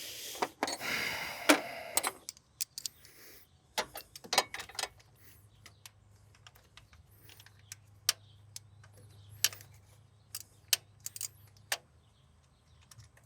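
Hand tools and metal parts clicking and clinking irregularly as the wires are disconnected from a car starter, with a scraping rustle in the first two seconds.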